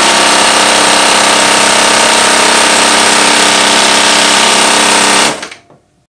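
Consew 206 RB-1 walking-foot industrial sewing machine, driven by a servo motor set to 2,000 stitches per minute, running at full speed and stitching through a sheet of paper with a steady, fast mechanical whirr. It winds down and stops a little after five seconds in.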